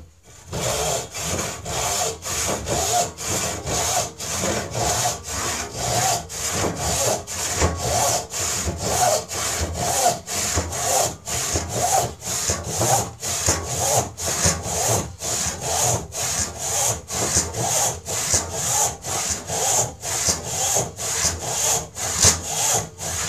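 A 5 ppi western hand rip saw cutting lengthwise down a board clamped upright in a vise, in a steady rhythm of about two strokes a second.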